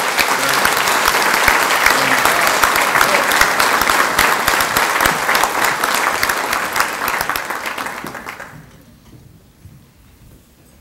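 Audience applauding, the clapping dying away about eight to nine seconds in, leaving quiet room noise.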